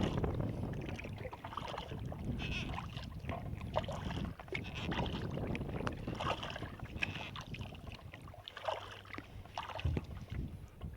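Kayak paddle strokes: the blades dipping into the lake, with water splashing and dripping off them in repeated clusters about a second apart. A low rumble of wind on the microphone fades over the first few seconds.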